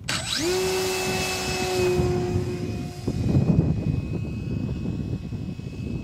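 Radio-controlled P-51D Mustang model's motor and propeller spinning up to full throttle for a hand launch: a whine rises at the start, then holds one steady pitch. About three seconds in it drops away as the plane flies off, and a low rumble takes over.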